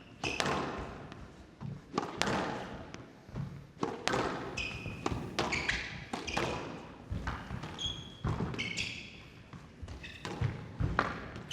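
Squash rally: the ball struck by rackets and thudding off the court walls at about one hit a second, with several short high squeaks in between.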